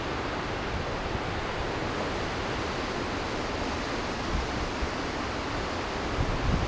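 Strong wind blowing across open farmland: a steady rushing noise, with low gusts buffeting the microphone near the end.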